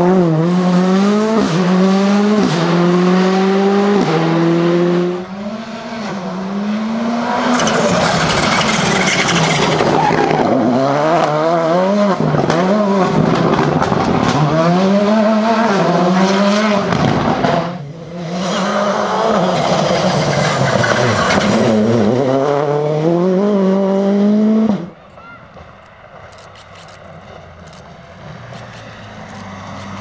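Rally car engines at full throttle, heard in several separate passes. The engine note climbs and then drops sharply at each quick upshift, about one gear a second at the start. In the last few seconds a car is heard more faintly.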